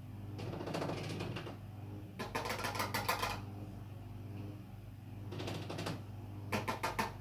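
A cockatiel knocking its beak in rapid runs of taps. There are four bursts: two longer runs of about a second each, then two short ones close together near the end.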